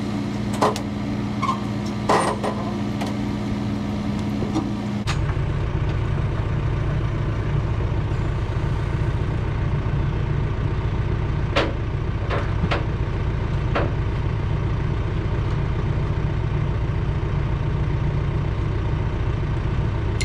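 Engine idling steadily, with a few sharp metallic clanks. About five seconds in, the engine sound turns abruptly deeper and fuller.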